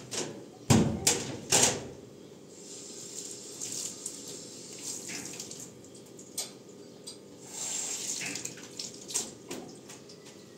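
Kitchen sink work at a stainless steel sink: three loud metal knocks in the first two seconds as a wire-mesh strainer basket and dish rack are handled against the steel, then water splashing in short runs with lighter clicks and taps.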